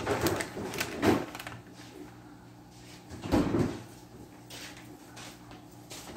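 Plastic bag of shredded cheese crinkling in short bursts as it is shaken over a foil pan. The loudest burst comes about three and a half seconds in, with fainter rustles after it, over a faint steady hum.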